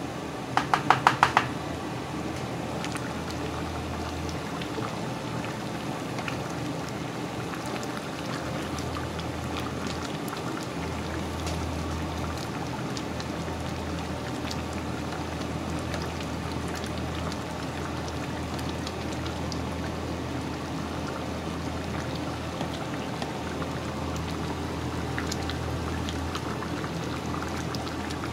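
Chicken and pork afritada simmering in a pot, a steady bubbling hiss, with scattered light clicks as a ladle stirs through the stew. About a second in, a quick run of about six sharp ringing clicks is the loudest sound.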